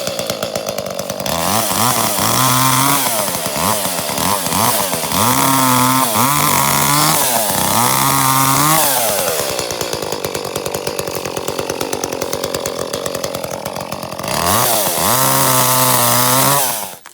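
Split-Fire 4090 wood chipper running hard while wild cherry limbs are fed through it, the engine repeatedly dipping in pitch under load and recovering. It runs steady for a few seconds in the middle, then bogs down again before the sound stops abruptly near the end.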